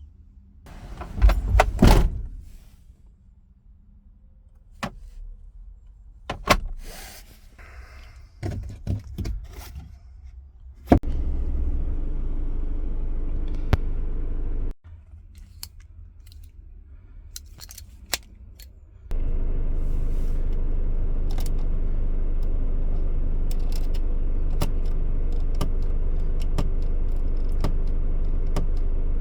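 Citroën Jumper van: keys and clicks from the cab, then the diesel engine starts and runs for a few seconds and cuts off suddenly. After a few more clicks it starts again and idles steadily.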